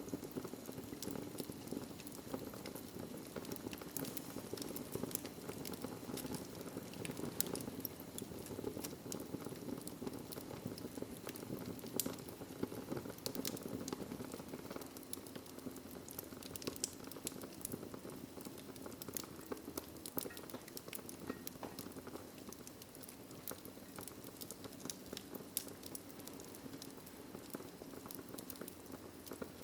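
Wood fire burning in a fireplace, crackling steadily with frequent sharp pops and snaps over a low, even rush.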